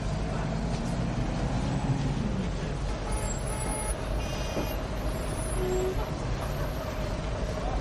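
Small motorcycle engine running steadily as it rides along, its pitch rising and falling in the first couple of seconds. Two short high beeping sounds come a little past the middle.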